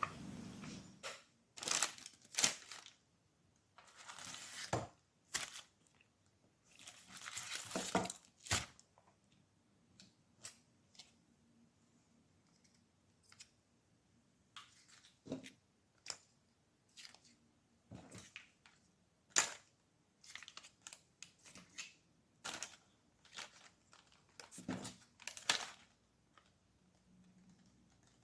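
Paper food packaging being handled: crinkling and tearing in several short rustling bursts, with scattered small clicks and taps between them.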